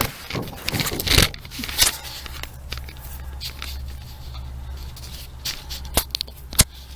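Hands handling loose metal parts under a car's dashboard: the removed brake push rod shoulder bolt and the loose pedal linkage. Scattered scrapes and light knocks, with two sharp metallic clicks, the louder one near the end, over a faint steady low hum.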